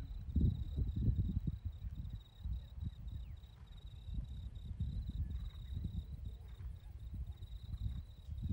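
A steady high insect trill, like crickets, runs under a louder, uneven low rumble.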